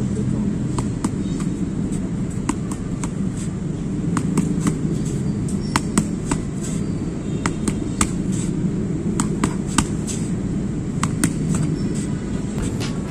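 Boxing gloves smacking into punch mitts: sharp slaps in quick, irregular combinations, several a second at times, over a steady low rumble of city traffic.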